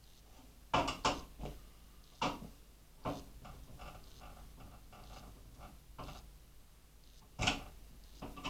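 Hard parts and tools being handled at a workbench: several sharp clicks and knocks, a cluster about a second in, single ones near two and three seconds in, and a louder knock about seven and a half seconds in.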